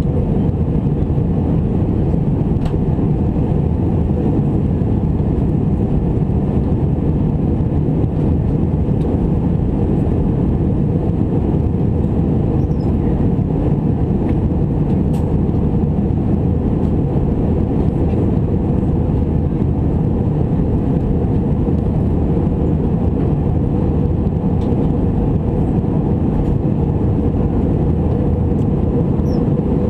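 Steady low cabin roar inside an Airbus A319 in flight: engine and airflow noise, unchanging throughout.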